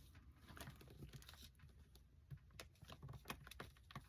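Near silence with faint, scattered clicks and taps of small plastic figure pieces being handled and fitted together.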